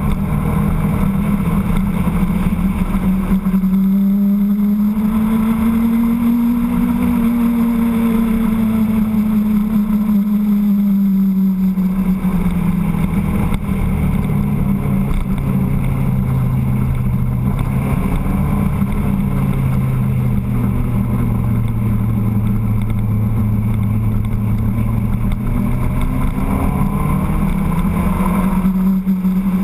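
Motorcycle engine running under way, its pitch rising over the first several seconds, dropping about halfway through, holding low, then climbing again near the end as the revs change through the bends.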